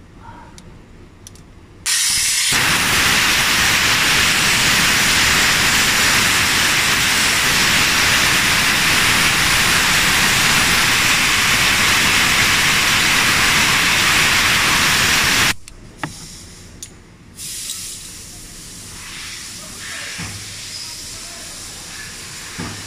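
Pressurized spray hissing hard and steadily onto a corroded electrical connector socket, starting suddenly about two seconds in and cutting off abruptly after about thirteen seconds. Faint clicks of handling follow.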